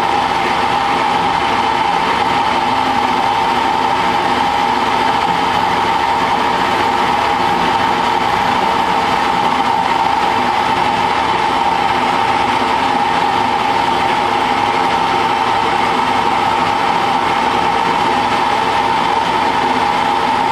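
Small bench metal lathe running steadily with a constant whine from its motor and gearing, the tool turning a taper on a hot-rolled mild steel bar while the cross slide is fed in by hand.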